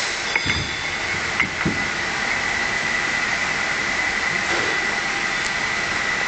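Bottling-line machinery running steadily with a constant high whine. A few sharp clinks and knocks of bottles being handled come in the first two seconds.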